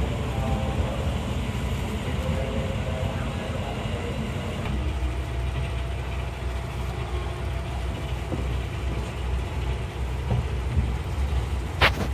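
Low, steady rumble of an electric commuter train heard from inside a crowded car, growing heavier a few seconds in. One short, sharp click sounds near the end.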